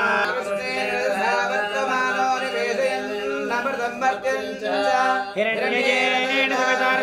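Melodic chanting of Sanskrit Hindu mantras, sung in drawn-out phrases with a wavering pitch and no instruments.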